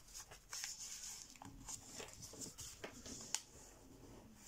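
Faint rustling and crinkling of a sheet of 80 g/m² printer paper being folded and pinched into a point, with scattered small ticks and one sharper tick a little past the three-second mark.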